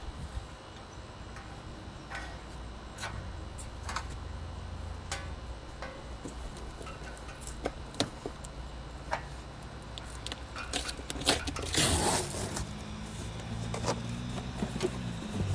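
Scattered clicks and metallic clinks of hand tools and fasteners on a condenser unit, over a low hum. About twelve seconds in comes a louder scraping rustle, and then a steady low hum starts.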